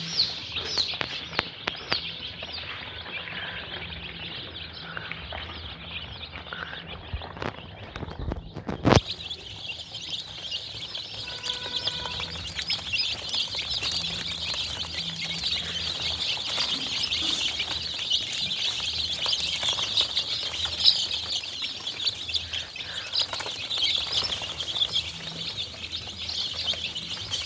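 A brooder full of young chicks peeping continuously, many high chirps overlapping, the chorus growing denser after about nine seconds. A single sharp knock sounds about nine seconds in.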